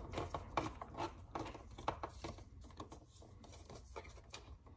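Small screws being handled and gathered together, with irregular light clicks and rustling that thin out after about two and a half seconds.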